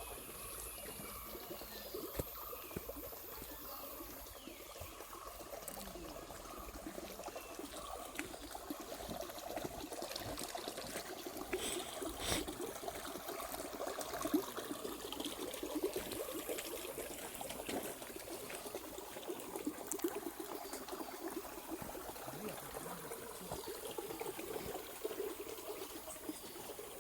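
Water trickling and splashing steadily, as in a small stream, with a few sharp clicks over it.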